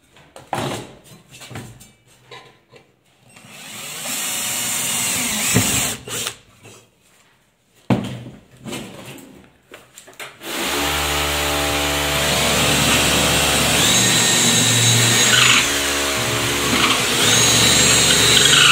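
Scattered clicks of metal parts being handled, then an electric drill boring fastener holes in an aluminium LED lighting profile. There is a short run about four seconds in and a long steady run from about ten seconds on, with the motor whine dipping in pitch twice near the end.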